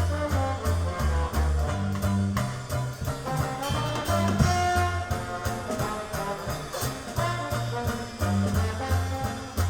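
Swing-style jazz with brass, a bass line stepping from note to note and a steady beat, played over hi-fi loudspeakers in a listening room.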